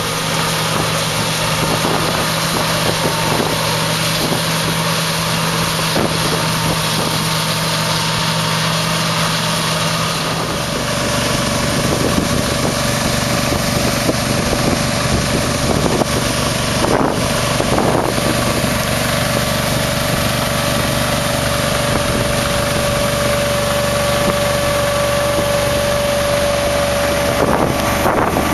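John Deere 9650 STS combine running steadily while harvesting soybeans, heard from inside the cab: an even engine and machinery drone with a held hum. About ten seconds in the low end deepens and a higher steady whine comes in.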